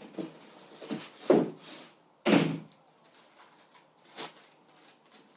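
A few knocks and thumps of table saw parts being handled and set down, two of them loud, with a brief rustle between them.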